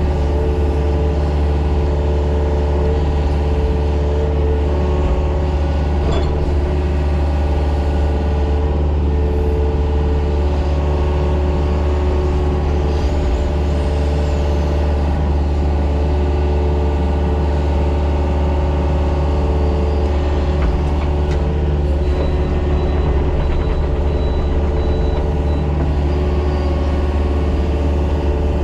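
Mini excavator's diesel engine running steadily at a constant speed, with a few faint clicks over the top.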